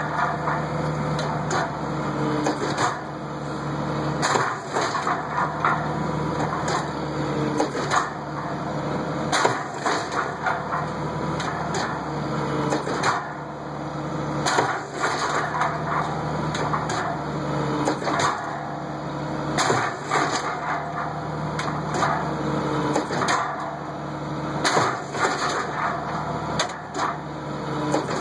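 Cotton module builder at work: a steady engine and hydraulic drone with frequent clanks and knocks as the tramper carriage travels and tramps the seed cotton. The drone changes in a cycle of about five seconds.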